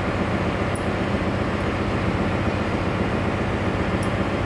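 Ship's engine-room machinery running: a steady, loud, unbroken drone with a low hum, with a couple of faint ticks.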